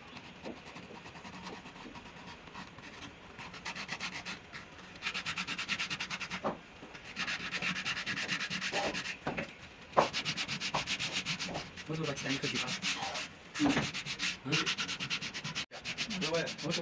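Carved wood being hand-sanded with a small folded piece of sandpaper: quick back-and-forth rubbing strokes in the carved grooves. The strokes start a few seconds in and come in spells, with a single sharp knock partway through.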